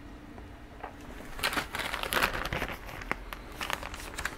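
Packaging crinkling and rustling as items are handled in a box, starting about a second in as a run of uneven crackles.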